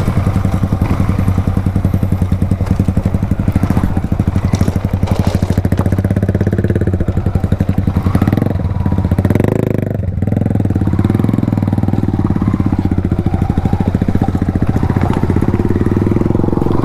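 Yamaha R15 V2's single-cylinder four-stroke engine running through an Akrapovic exhaust with the dB killer removed: a steady, pulsing exhaust note. The revs climb briefly about eight seconds in, dip about ten seconds in, then settle back.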